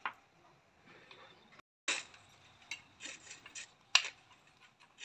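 Light clicks and clinks of a screwdriver and small metal and plastic parts being handled on a demolition hammer's open gear housing, with sharper knocks about two seconds in and again about four seconds in.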